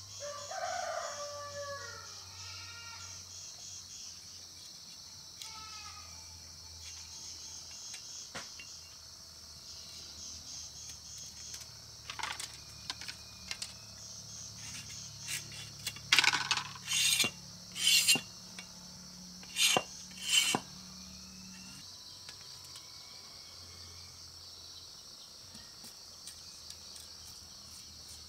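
Insects shrilling steadily in a high pulsing chorus, with a rooster crowing once at the start. About halfway through comes a run of sharp knocks and clatters, the loudest five close together in a couple of seconds.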